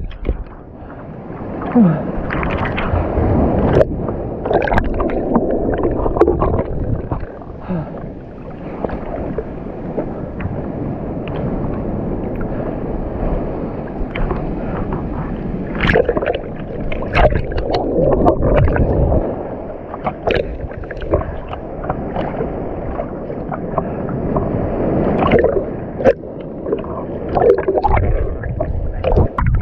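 Seawater sloshing and gurgling against a GoPro action camera held at the waterline as a swimmer bobs in waves, muffled with little high sound, broken by irregular splashes and small bubbly pops.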